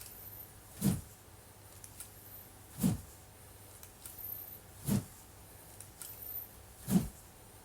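Wooden practice sword (bokken) cutting the air in practice swings: four short whooshes, about two seconds apart.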